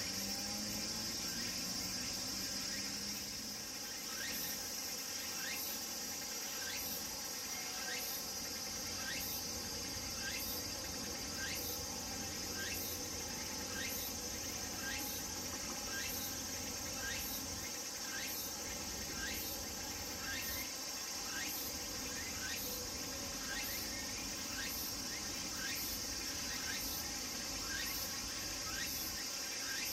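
Cicadas calling: a steady high-pitched drone, with a tsukutsukuboushi cicada (Meimuna opalifera) repeating its pulsing call a little more than once a second.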